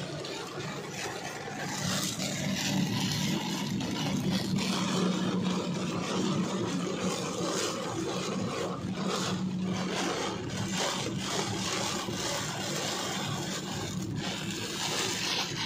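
Heavy rain pelting a car's windscreen and body, heard from inside the moving car, with the windscreen wipers scraping across the wet glass over a steady low hum of the engine and tyres on the flooded road.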